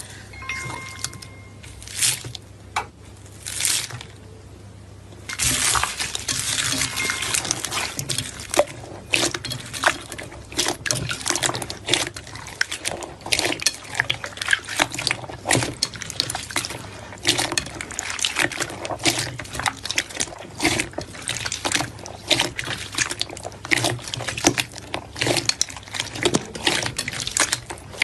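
Slime being squished and pressed, making wet clicking and popping sounds. There are a few separate squishes at first, then a dense run of rapid pops from about five seconds in.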